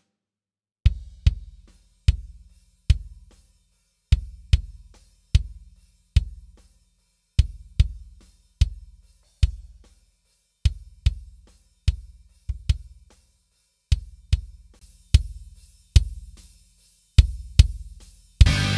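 Kick drum from the Superior Drummer 3 virtual drum kit, played back on its own in a rock beat pattern of single and paired hits. Each hit is a deep thump with a short click on top, while its EQ is being shaped. Near the end a full band mix with guitar cuts in suddenly.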